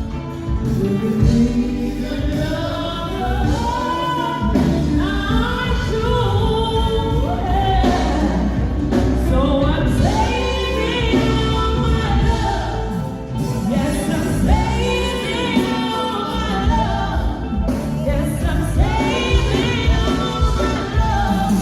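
Singing in a gospel style over instrumental accompaniment.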